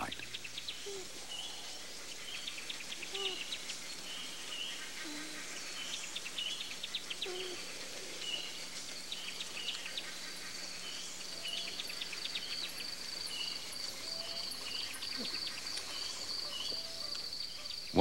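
Evening forest ambience of insects: short high chirps repeating about once a second, quick clicking trills, and a steady high-pitched insect trill that sets in about a third of the way through, with scattered faint low calls underneath.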